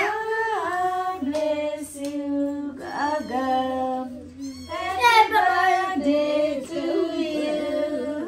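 Several voices singing a song together in long held notes that slide between pitches.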